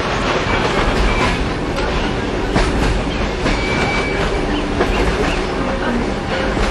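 Kuranda Railway train carriage running along the track, a steady rolling rumble with the clickety-clack of wheels over rail joints, heard from aboard.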